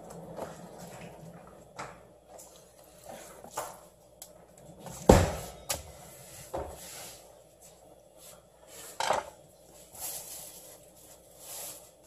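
Scattered knocks and clatter of kitchen work, with one loud thump about five seconds in and another knock near nine seconds.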